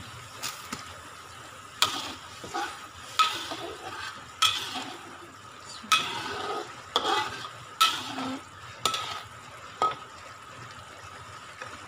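Stainless steel ladle scraping and knocking against a wok, about nine strokes, as blended spice paste is stirred and sautéed. A steady sizzle of the paste frying in oil runs underneath.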